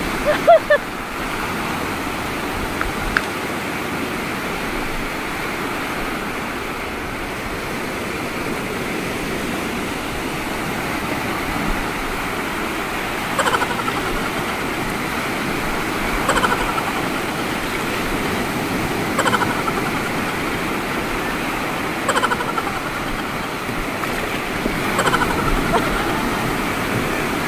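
Small lake waves breaking and washing steadily over a pebble shore. In the second half a short, falling call repeats five times, about every three seconds.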